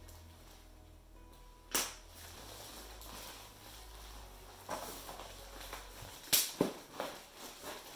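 Cardboard boxes being pulled out of a plastic mailer bag and set down on a hardwood floor: a sharp knock about two seconds in, then a run of knocks and rustling near the end, the loudest about six seconds in.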